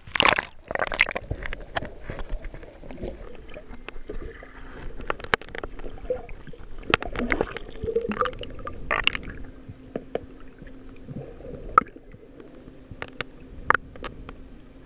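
Splashing as the camera breaks through the sea surface in the first second or so, then muffled underwater sound: gurgling bubbles, scattered sharp clicks and a faint steady hum.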